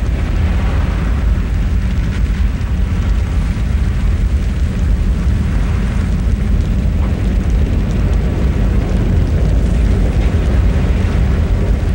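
Designed documentary sound effect: a deep, steady rumble with a thin hiss above it, standing in for the churning surface of the sun.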